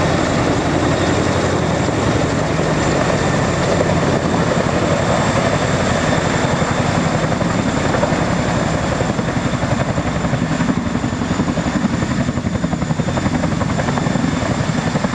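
Boeing CH-47 Chinook tandem-rotor helicopter hovering low with a slung shipping container, its rotors beating in a fast, steady chop over a thin high whine.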